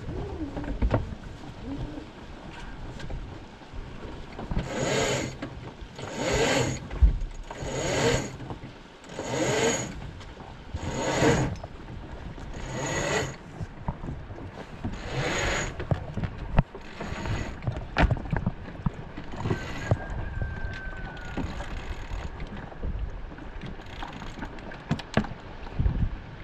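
A spinnaker halyard hauled in by hand, a rush of rope at each pull, about one pull every one and a half seconds, growing fainter and sparser toward the end.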